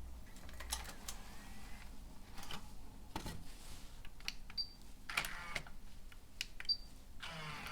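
Scattered clicks of buttons being pressed on a Pioneer DEH-P8400MP car CD head unit, with a couple of short high beeps from the unit.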